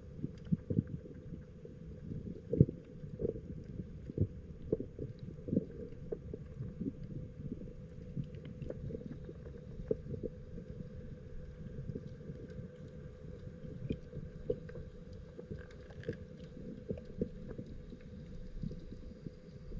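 Muffled underwater sound heard through a waterproof camera case: a low rumble of moving water, with irregular small clicks and knocks, the loudest about two and a half seconds in.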